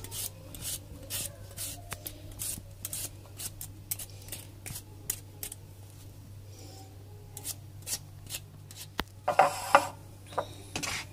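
Hand-held vegetable peeler scraping the skin off a raw red-skinned potato in quick repeated strokes, about three a second. Near the end, a louder clatter as the peeled potatoes are handled on a china plate.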